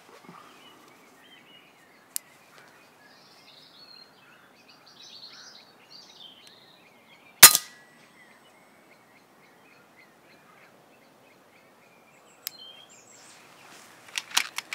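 A single shot from an FX Impact MkII pre-charged air rifle, one sharp crack about halfway through. Birds chirp throughout, and a few sharp clicks come near the end.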